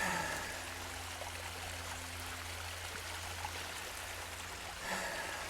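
Creek water flowing steadily, with a brief louder sound right at the start and again near the end.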